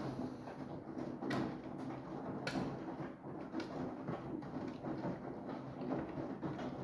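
Samsung washing machine running: a steady wash noise with a few sharp knocks in the first few seconds.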